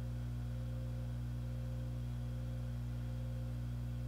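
A steady low hum made of a few constant tones, unchanging throughout, with nothing else heard.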